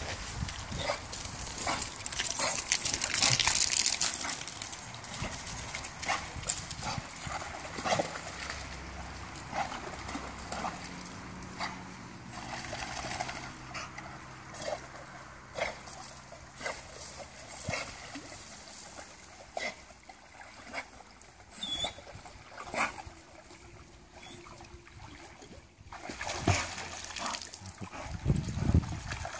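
An American Staffordshire terrier swimming in a shallow river: water splashing and sloshing around it, mixed with the dog's own noises. The splashing is loudest about two to four seconds in and again near the end.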